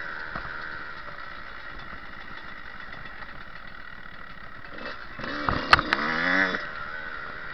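Dirt bike engine idling steadily, then revving up briefly about five seconds in, with two sharp clicks at the peak.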